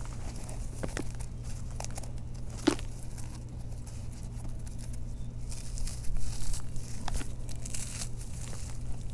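Dry, powdery reformed chunks being snapped and crumbled between bare hands, with a few sharp cracks as lumps break (the strongest about a third of the way in) and soft gritty crunching and sifting as the crumbs fall through the fingers.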